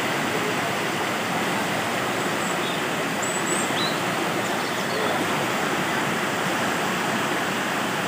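Waterfall and small cascades of water rushing steadily over rocks.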